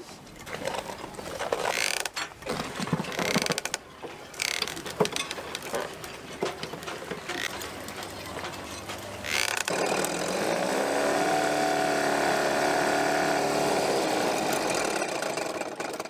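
Small outboard motor being handled and pull-started: knocks and a few short rasping pulls on the starter cord, then it catches about ten seconds in and runs steadily for about five seconds before winding down. It runs despite having stood five months with old petrol in it.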